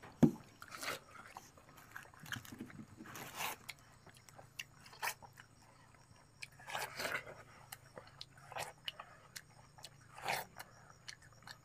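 Bites into ripe watermelon wedges and wet chewing, with several louder bites every few seconds among quieter chewing.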